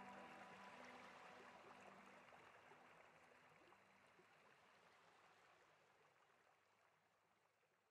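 Background music fading out: its last tones die away in the first couple of seconds, leaving a faint rushing, stream-like hiss that keeps fading to near silence.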